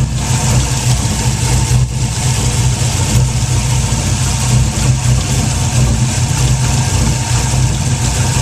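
The cammed LS1 V8 of a 2004 Pontiac GTO idling steadily. The owner hears a metal-on-metal tick in it that he suspects is a knock coming from low in the engine, not from the lifters.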